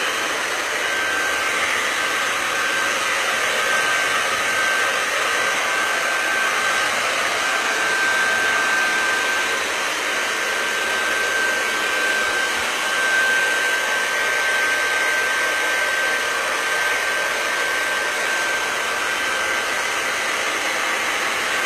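Hand-held hair dryer blowing steadily: an even rush of air with a thin whistle tone running through it. It is drying freshly applied relief texture paste on a tabletop.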